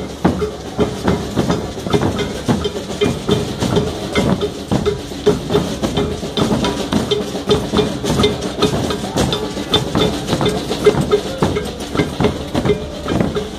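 Carnival parade percussion: drums and other struck percussion played in a fast, steady, driving rhythm.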